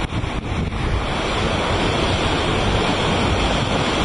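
Strong wind, around 35 knots, buffeting the microphone, with sea water rushing and breaking around a yacht sailing fast through big waves. The noise is loud and steady, heaviest in the low rumble.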